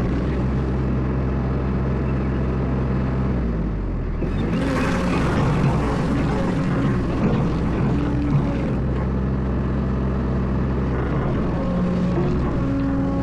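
Excavator engine running steadily under work, with a louder, noisier stretch from about four to nine seconds in that carries a few sharp knocks.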